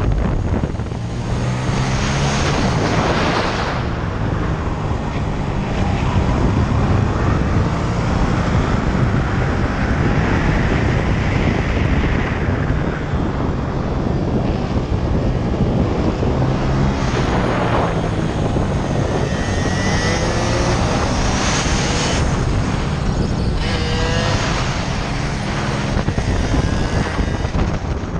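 Honda Grom's single-cylinder four-stroke engine at race pace, revving up and down through the corners. Higher whines from other minibikes' engines close by come through in the second half.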